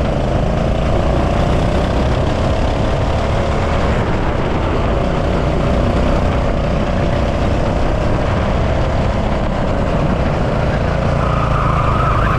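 Go-kart engine running hard at racing speed, its note rising and falling slightly, over a steady low rumble. A second, higher engine note joins briefly near the end.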